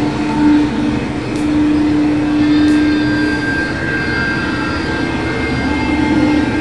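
Loud, steady mechanical rumble and hiss with several sustained whining tones; the strongest, lowest tone drops out partway and returns near the end.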